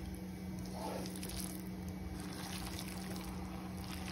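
Pan of noodles, meatballs and tomato gravy simmering quietly and evenly on the gas stove, over a constant low hum.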